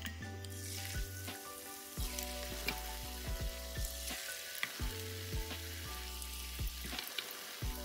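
Onion pakora batter deep-frying in hot oil, sizzling and bubbling as spoonfuls go into the pan, beginning about half a second in. Instrumental background music plays underneath.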